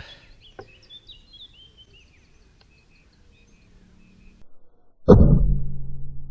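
Rat Works Reaper air rifle firing a single shot about five seconds in, a sharp report followed by a low hum that lingers. Faint bird chirps before the shot.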